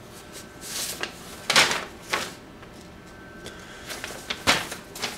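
Sheets of printer paper rustling and flapping as they are handled and leafed through, in about five short rustles; the loudest comes about a second and a half in.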